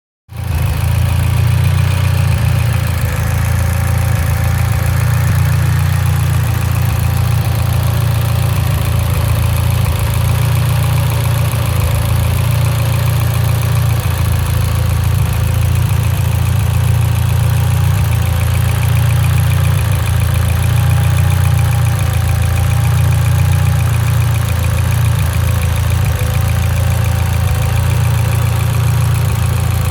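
Mitsubishi Lancer Evolution X's turbocharged 2.0-litre four-cylinder engine idling steadily with an uneven, misfiring beat, which the owner puts down to a lean idle.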